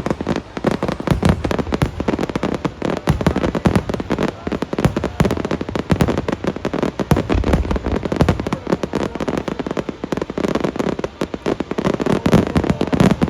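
Fireworks going off in rapid succession: a dense, unbroken run of bangs and crackles.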